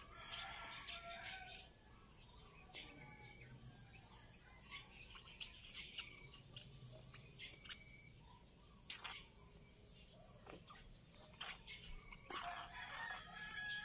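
Birds: a rooster crowing near the start and again near the end, and a small bird chirping in short runs of three or four high notes. Occasional sharp clicks, the loudest about nine seconds in.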